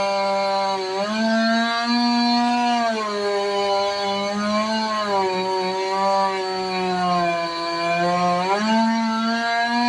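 Chainsaw running at high revs. Its pitch jumps up about a second in, sags and wavers through the middle as the chain bites into the wood, then climbs back up near the end.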